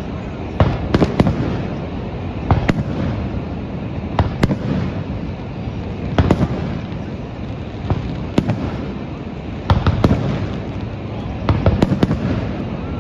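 Aerial fireworks shells bursting overhead: about a dozen sharp bangs with rumbling echoes, one every second or two and some in quick pairs or triplets, over a steady background rush.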